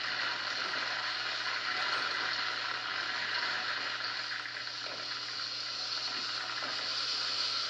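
Steady rush of river whitewater and falling water from waterfalls, an even hiss with no breaks, played back through a television's speakers.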